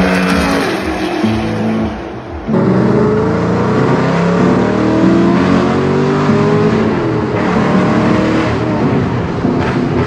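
High-performance car engines revving and accelerating hard, with the engine pitch climbing through the gears; a cut about two and a half seconds in switches to another run.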